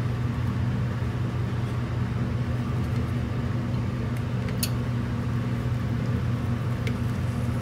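A steady low mechanical hum runs unchanged in the kitchen while butter slabs sit melting in a small saucepan over a lit gas burner, with a faint tick or two about four and a half and seven seconds in.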